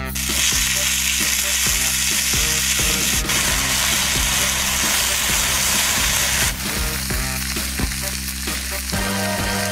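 Food sizzling on a hot cooking stone: a dense hiss that eases off about two-thirds of the way through, with a few sharp pops. Background music with a steady low bass plays underneath.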